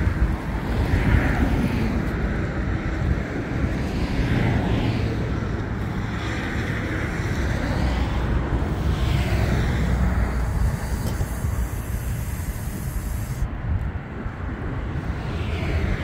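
Wind buffeting the microphone: a fluctuating, rumbling noise that rises and falls in gusts.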